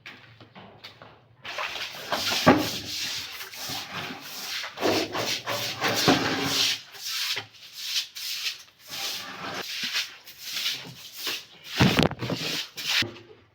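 Clothes being scrubbed together by hand, fabric rubbing on fabric in quick, irregular strokes. The scrubbing starts about a second and a half in and stops shortly before the end.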